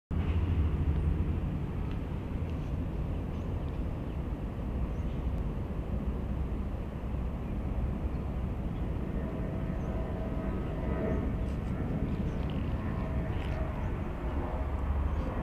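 Steady low outdoor rumble, with no clear rhythm, and a few faint short high sounds scattered through the latter half.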